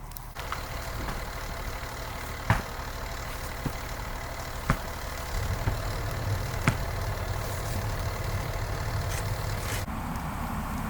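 A vehicle engine idling steadily, with a few sharp clicks about two seconds apart in the middle.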